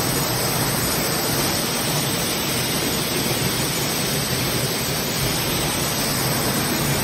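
Waterfall with water falling and rushing in a steady, unbroken roar.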